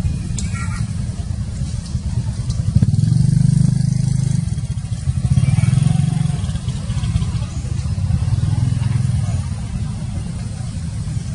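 Low rumble of passing motor vehicles, swelling twice, about three and five seconds in.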